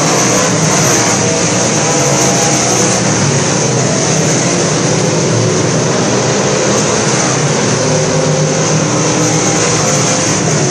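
Engines of several southern sport mod dirt-track race cars running hard around the oval, many engine notes overlapping in one loud, steady sound.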